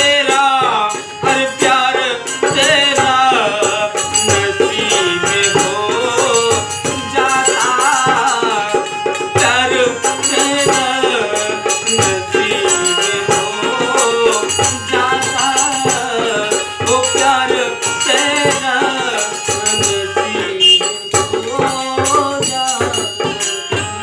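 Live Indian folk ghazal: a man singing over a keyed instrument, with a dholak drum and small brass hand cymbals jingling steadily in rhythm.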